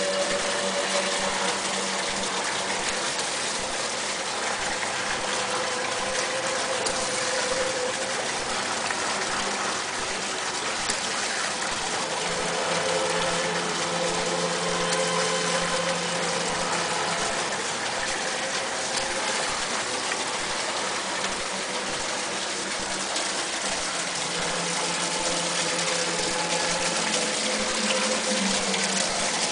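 Steady rush of running water from a pump-fed water feature in a model nativity scene, with faint hums coming and going underneath.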